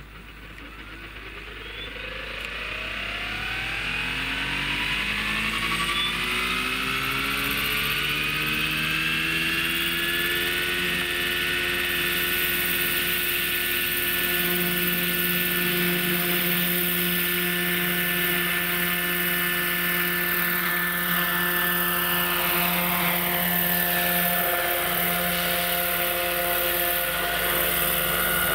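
A Bo-105 superscale RC model helicopter, driven by a Hacker electric motor, spools up. Its motor, gear and rotor whine rises in pitch and loudness over about ten seconds as the rotors come up to speed, then holds steady with the rotor blades' swish. In the last third the pitch shifts as the model lifts off and climbs away.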